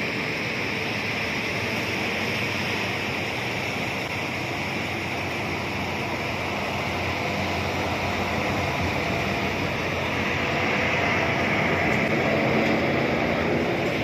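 A heavy truck's diesel engine labours up a grade and grows louder as it passes close by, over a steady hiss.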